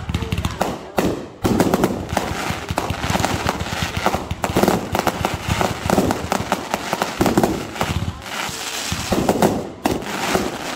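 Aerial fireworks going off in a rapid barrage, many bangs and crackles overlapping. The barrage thickens into a near-continuous volley about a second and a half in.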